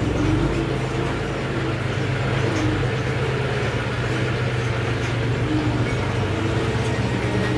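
John Deere 5105 tractor's diesel engine running steadily with a low, even drone as it tows a trailer loaded with soil and rocks.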